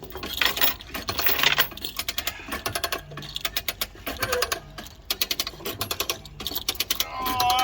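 Hand-cranked trailer winch ratcheting: a rapid run of clicks from its pawl as the handle is worked to drag a vehicle onto the trailer. A brief wavering squeal near the end.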